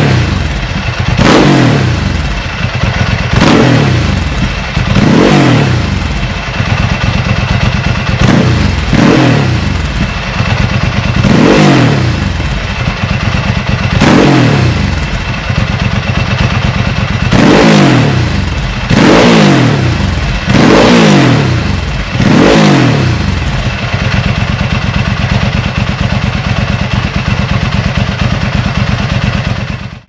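Ducati 999's Testastretta V-twin engine being blipped about eleven times, each rev climbing sharply and dropping back, then idling steadily for the last several seconds.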